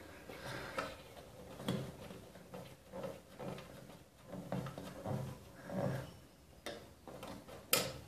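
Hands working on the parts of an electric water heater (geyser), plastic cover and metal fittings: irregular soft knocks and scrapes with a few sharp clicks, the loudest click near the end.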